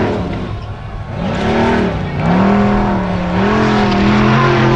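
Formula Offroad buggy's engine at high revs as it claws up a steep sand slope. The revs rise about a second in, drop briefly around two seconds, then are held high.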